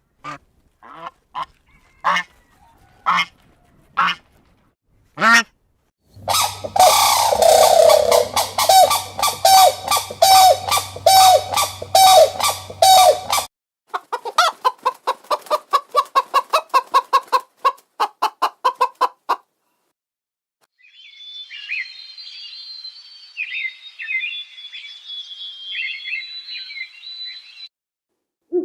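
A succession of bird calls from several clips. First come single sharp calls about once a second, then a dense, noisy flock of honking and cackling birds over a low hum. Next come rapid evenly spaced pulsed calls, and after a short gap, higher chirping.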